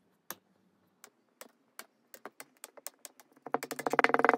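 Kinetic sand balls crunching and crackling as a steel press squeezes them down in a glass. Scattered soft crackles grow denser and turn into a loud, rapid run of crackling about three and a half seconds in.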